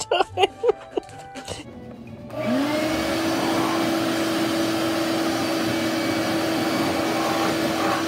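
A wet/dry shop vacuum switched on about two seconds in, its motor spinning up with a quick rising whine and then running at a steady pitch. Before it start there are a few short squeaks.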